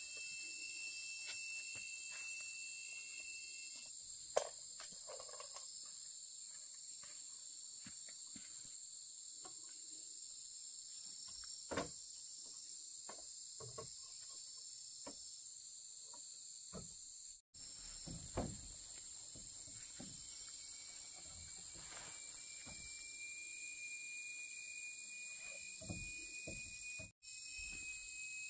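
A steady, high-pitched chorus of insects, with a few faint knocks now and then. The sound cuts out for a moment twice.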